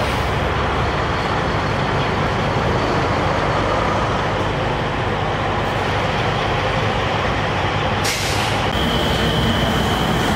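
Heavy diesel trucks idling, a steady low engine rumble. About eight seconds in comes a short burst of hiss, then a steady high-pitched tone.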